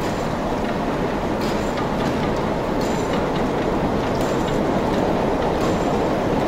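Overhead line-shaft transmission running: a steady rumbling clatter of turning shafts, pulleys and flat belts, with faint ticks and short squeaks, getting a little louder.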